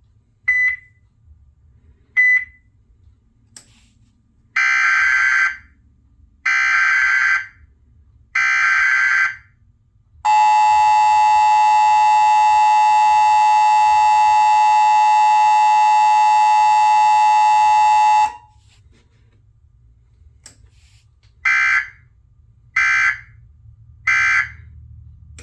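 TFT EAS 911 Emergency Alert System encoder sending a Required Monthly Test. After two short beeps come three roughly one-second bursts of SAME header data tones, then the steady two-tone attention signal for about eight seconds, then three short end-of-message bursts.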